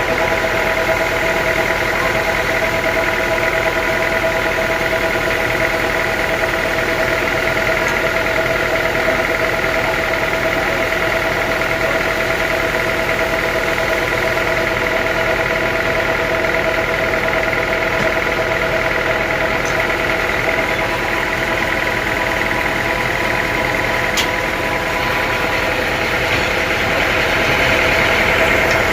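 Sawmill machinery running steadily: a constant motor hum with a steady whine. It gets a little louder near the end.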